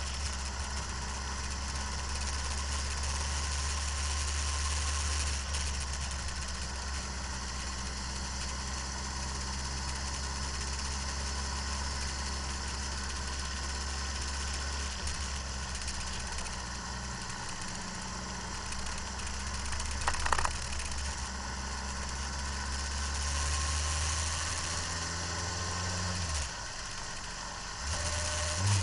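Motorcycle engine running at steady throttle on a race track, with wind hiss over the microphone. Near the end the engine note rises, then briefly drops and comes back.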